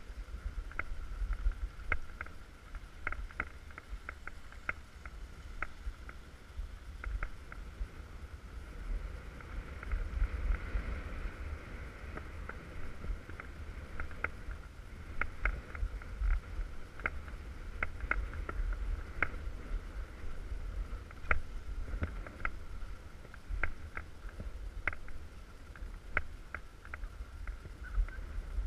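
Wind buffeting a helmet- or body-mounted GoPro while skiing down a groomed piste, a steady low rumble under the hiss and scrape of skis on the snow, with irregular sharp ticks throughout.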